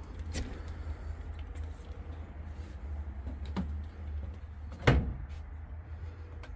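A door being opened and closed: a few light clicks and knocks, then one loud knock about five seconds in, over a steady low rumble.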